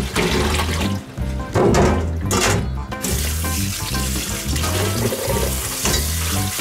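Water splashing and pouring through a stainless-steel mesh strainer into a sink as soaked burdock slices are drained, turning to a steady pour about three seconds in. Background music with a repeating low beat plays throughout.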